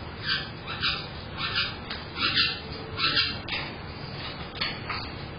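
Caique parrots calling: a string of short, sharp shrieks, about two a second for the first three seconds, then a couple more near the end.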